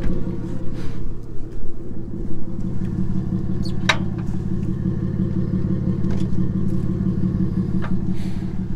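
Toyota 4Runner's engine idling steadily, with a couple of faint clicks partway through.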